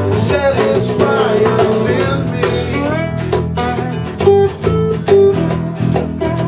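Live acoustic blues played on a resonator guitar and an acoustic guitar together, with bending, gliding notes over a steady low bass line.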